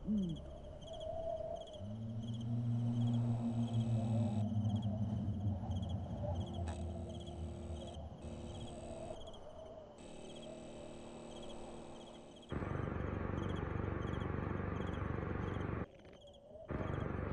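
Cartoon night ambience: crickets chirping in an even, repeating rhythm over a low droning hum. About twelve seconds in, a loud steady hiss like static takes over, dropping out briefly near the end.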